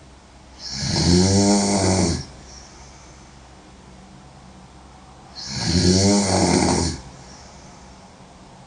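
A woman snoring loudly: two long snores, each about a second and a half, about five seconds apart.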